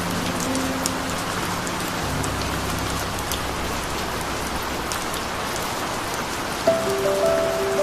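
Steady rain pattering on a surface, an even hiss with scattered drop ticks. Soft background music lies under it: low held chords fade out a few seconds in, and a slow melody of single notes starts near the end.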